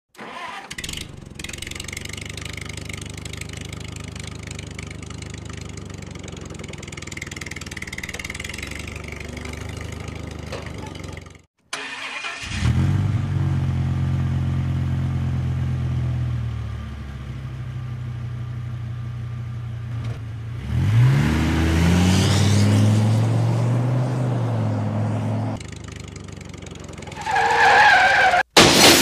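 Vehicle engine sound effects: an engine running steadily, a short break about eleven seconds in, then another engine running that revs up with a rising pitch about twenty seconds in. Near the end a louder wavering squeal comes in.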